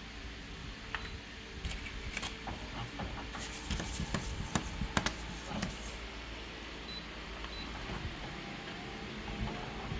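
Scattered sharp clicks of a computer mouse and keyboard, thicker in the middle, over a steady low hum.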